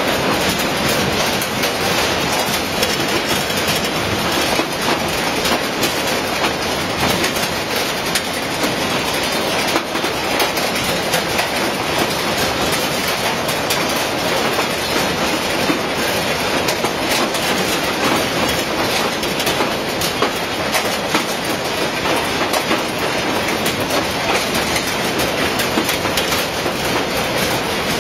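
Grapefruit weight-grading line running: its conveyor of plastic fruit cups clattering steadily, with dense rapid clicking throughout.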